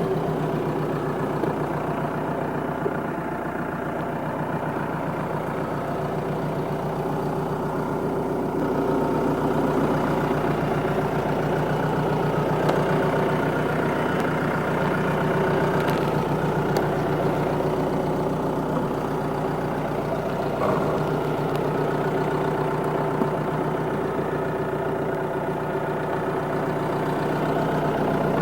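Renault Espace IV car engine running steadily just after being started, growing a little louder after about nine seconds.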